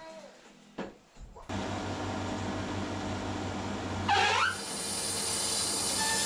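Wood-Mizer LT30 electric band sawmill running: a steady mechanical whirr with a low hum that starts abruptly about one and a half seconds in, after a couple of faint knocks. About four seconds in, a brief loud whine falls in pitch over the steady machine noise.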